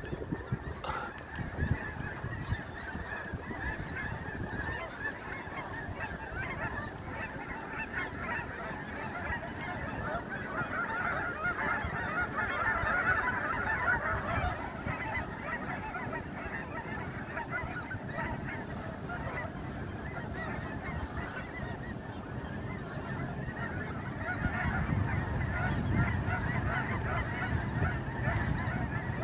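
A large flock of birds calling, many calls overlapping at once, busiest about twelve to fourteen seconds in.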